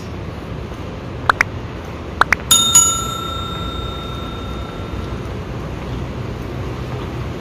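Edited-in subscribe-button sound effects: two pairs of quick rising blips, then a bell struck twice whose ding rings on for a couple of seconds, over a steady low background rumble.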